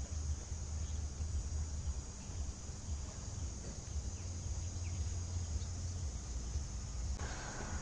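Outdoor ambience: wind rumbling on the microphone, under a steady high hiss of insects and a few faint bird chirps; a steadier mid-pitched buzz joins near the end.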